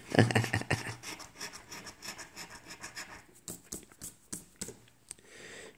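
Scratching the coating off a lottery scratch-off ticket: quick, rapid rasping strokes for about three seconds, then a few separate scrapes, fading near the end.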